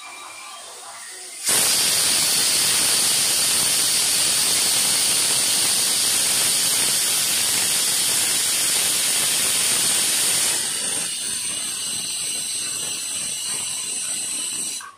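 Aluminium pressure cooker's weight valve blowing steam: a loud hissing whistle that starts suddenly about a second and a half in, eases a little around ten seconds in with a thinner whistling tone, and cuts off just before the end. It is the cooker's 'whistle', the sign that it has come up to pressure.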